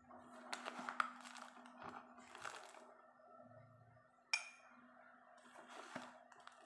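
Metal spoon scooping powdered arrowroot drink from a foil pouch and tipping it into a drinking glass: faint crinkling of the foil and scraping, with light clinks of the spoon, the sharpest a little past four seconds in.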